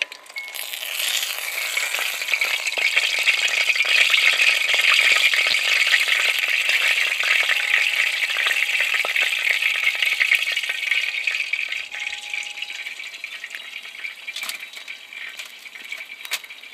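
Whole tilapia frying in hot oil in a pan: a dense crackling, spattering sizzle that swells over the first couple of seconds and dies down over the last few. A few sharp clicks near the end.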